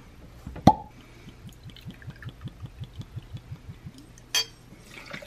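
Tequila poured from a glass bottle into a shot glass, glugging in a quick, even run of about five glugs a second. A sharp click with a short ring comes under a second in, and another sharp click near the end.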